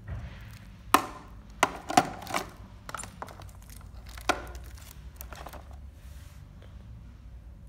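Hard plastic knocks and clicks as a Philips HR2602 blender's jar is handled and set on its motor base, about five sharp ones in the first half, with light plastic-bag crinkling. The motor is not running.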